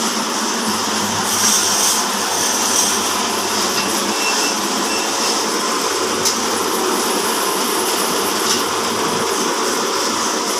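Horizontal band sawmill, driven by a 5 HP electric motor, running steadily with its blade sawing through timber.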